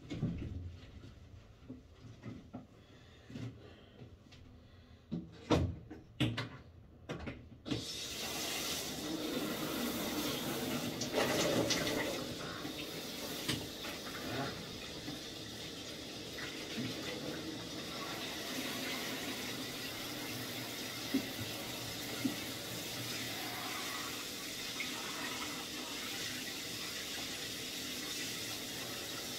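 A few knocks and clatters, then a bathroom tap is turned on about eight seconds in and water runs steadily, splashing into the tub below.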